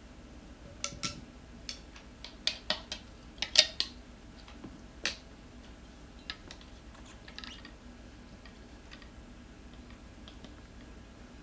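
Metal tire levers clinking and knocking against a scooter wheel rim while prying the tire bead off: a quick string of sharp clicks, a few ringing briefly, in the first five seconds, then only faint scattered ticks.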